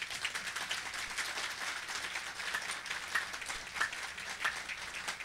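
An audience applauding steadily, many hands clapping at once.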